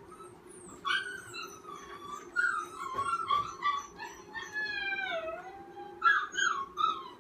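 Fearful puppy whining and crying in high-pitched, wavering cries that start about a second in, with one longer whine midway that dips in pitch and rises again: a frightened puppy in distress while being handled on a leash.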